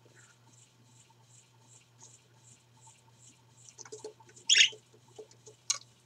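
Pet parakeets (budgerigars) in their cage: small clicks and taps, one short, loud chirp about two-thirds of the way in, and a sharp click near the end.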